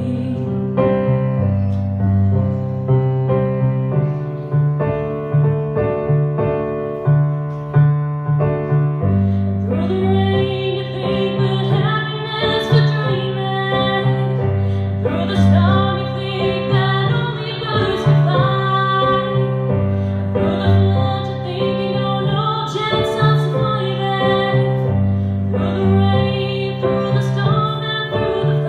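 A woman singing while accompanying herself with chords on an electric piano, a live solo vocal and keyboard performance. Her voice stands out most clearly from about ten seconds in.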